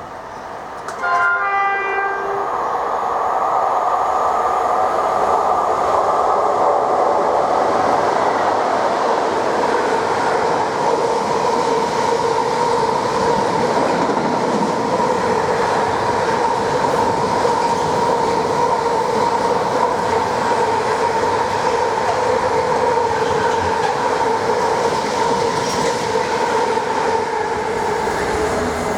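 A train sounds a short horn blast about a second in, then runs past loud and steady, with a steady drone over the rumble of the wheels.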